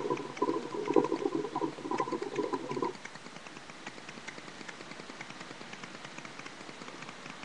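Hookah water bubbling and gurgling as smoke is drawn through the hose, stopping suddenly about three seconds in. After that only faint scattered ticks remain.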